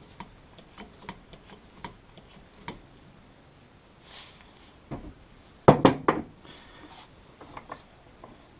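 Hand tools and small metal parts clicking, scraping and knocking on a workbench. There are scattered light taps, then a quick cluster of louder knocks about six seconds in.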